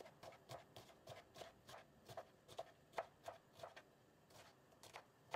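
Kitchen knife chopping fresh broad bean pods into small rounds on a wooden cutting board: a steady run of faint, crisp chops, about three a second.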